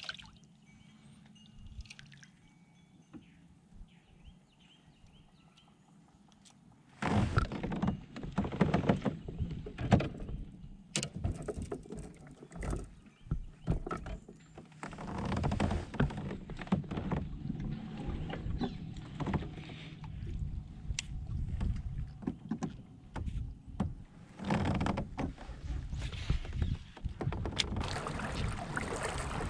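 Fishing kayak on the water: after a quiet start, water sloshing and noise from the hull and gear begin suddenly about seven seconds in, with many sharp knocks and clicks mixed in.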